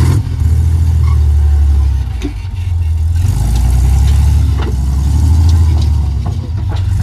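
Vintage Jeep's engine pulling at low speed as it crawls up a rock ledge, the revs rising and easing a few times, with a few sharp knocks.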